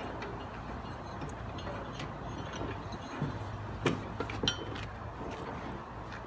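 Scattered light clicks and knocks as the deck belt is worked off the Scag TigerCat II mower deck's pulleys and idler tensioner, the loudest a little before four seconds in, over a steady low hum.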